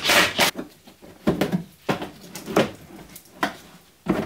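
A cordless driver runs briefly as it backs out a wheel-arch liner screw. It is followed by a series of short, sharp plastic clicks and scrapes, about one every 0.7 s, as the plastic wheel-well liner is worked loose.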